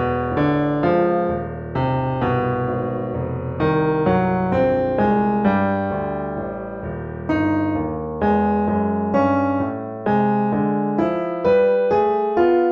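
Piano background music: a steady run of struck chords and melody notes, each fading after it is struck.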